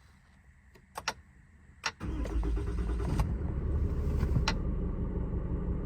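A 6.7-litre Cummins turbo-diesel in a Ram 5500 cold-started: a few clicks, then the engine fires about two seconds in and settles into a steady idle.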